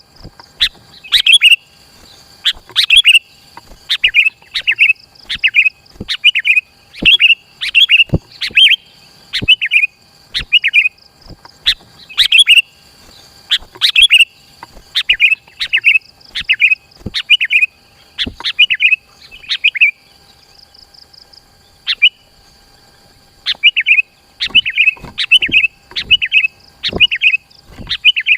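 Sooty-headed bulbul (kutilang) singing: short, loud chirping phrases repeated rapidly, about two a second, with a pause of a few seconds around two-thirds of the way through.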